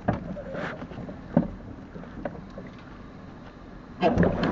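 Sounds inside a racing eight held on the start line, picked up by the coxswain's recorder: low wind and water noise with a few small knocks from the boat, about a second and a half apart. Near the end a louder rush of noise sets in.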